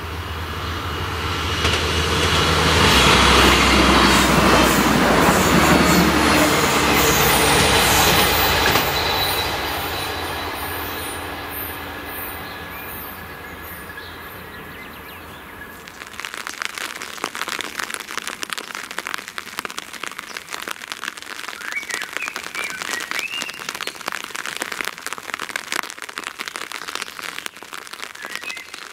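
A diesel train passes the crossing, loudest a few seconds in with a low engine rumble and wheel noise, then dies away. After an abrupt change at about sixteen seconds, rain falls steadily in many fine ticks.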